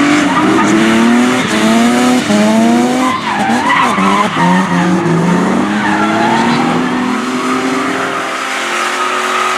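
Drift car sliding with its tyres screeching while the engine revs up and down in quick repeated rises, the driver working the throttle through the slide.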